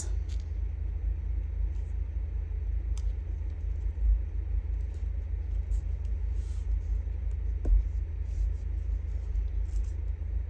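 A steady low rumble, with faint rustles and a couple of soft taps from paper strips being handled and laid down on a table.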